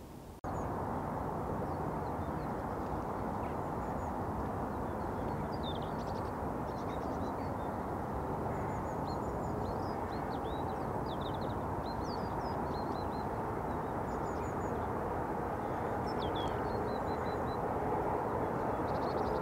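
Steady hum of distant road traffic, cutting in after a brief dropout near the start, with small birds chirping over it from about five seconds in until near the end.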